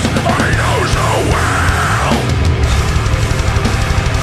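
Live deathcore band playing: distorted guitars and fast drumming, with a vocal line through the first two seconds or so.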